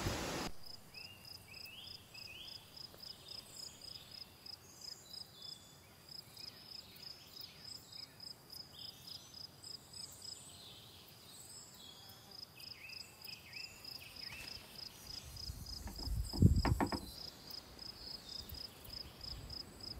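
An insect chirping in a steady high pulse, about four pulses a second, with scattered short bird chirps over it. A brief low rumble sounds about three-quarters of the way through.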